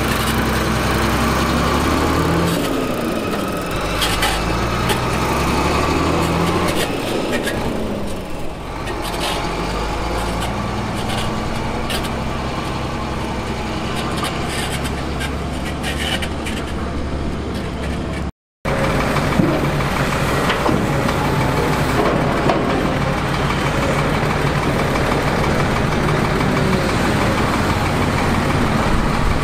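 Diesel engine of heavy earthmoving machinery running, its note rising and falling repeatedly, with scattered sharp knocks. About two-thirds of the way through the sound breaks off for an instant, then steadier engine running follows.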